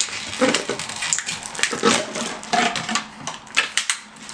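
A crinkly plastic packaging bag being pulled out of a clear plastic tube container: irregular rustling and crackling, with sharp clicks and knocks of plastic against plastic.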